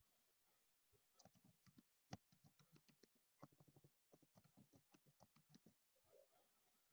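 Faint clicking of a computer keyboard being typed on, in quick runs of keystrokes.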